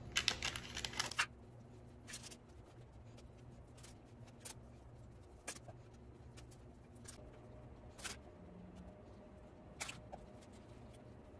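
Faint kitchen handling noises: a quick cluster of rustles and clicks at the start, then a few scattered single clicks over a steady low hum.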